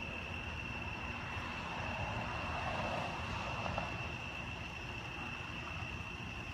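A steady high-pitched insect chorus, with the sound of a distant engine passing that swells and fades away between about one and a half and four seconds in.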